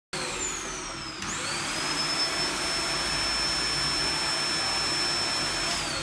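Canister vacuum cleaner motor whining down as it is switched off, then switched back on about a second in, spinning up to a steady run, and switched off again near the end, its pitch falling.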